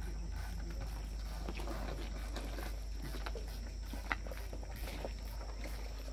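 Insects droning at a high, steady pitch over a steady low hum, with a single sharp click about four seconds in.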